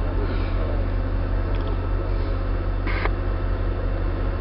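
Steady low hum of an idling engine heard from inside a parked car, with a brief hiss about three seconds in.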